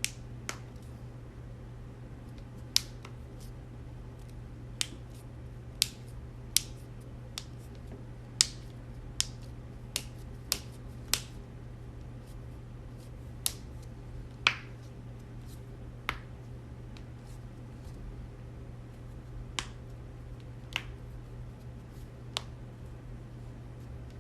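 Joints cracking: about eighteen sharp pops at irregular intervals, some much louder than others, over a steady low hum.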